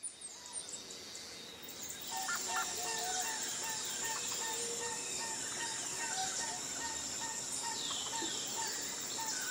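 Forest soundscape of birds chirping and whistling, with repeated short calls. A steady high-pitched drone joins about two seconds in.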